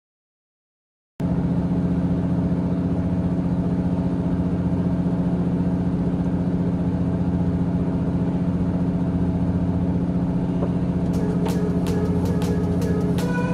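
A fishing boat's engine running steadily with a low, even hum, starting suddenly about a second in. Near the end, a quick run of sharp clicks joins it.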